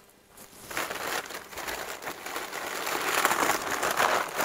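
Shoe packaging crinkling and rustling as it is handled and unwrapped by hand. It starts about half a second in and grows louder toward the end.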